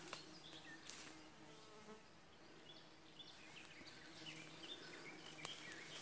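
A flying insect buzzing faintly with a steady hum, over near silence in the forest. Near the end, rustling starts as someone pushes through undergrowth.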